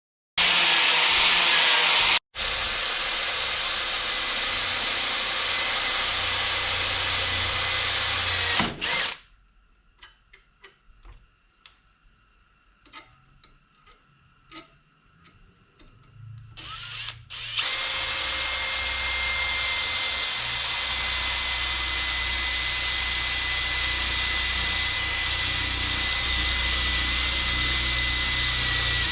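Power grinder with a flap wheel dressing the rough plasma-cut edges of a 3/16-inch steel plate, running with a steady high whine. It runs for about eight seconds, stops for about eight seconds with only faint small knocks, then runs again for the rest.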